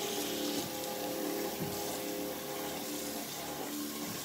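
Kitchen faucet running in a steady stream while rice is being rinsed.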